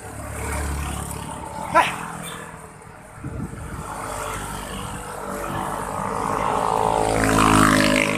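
Motorcycle engines passing close by, the loudest overtaking near the end with a rising engine note. There is a sharp click about two seconds in.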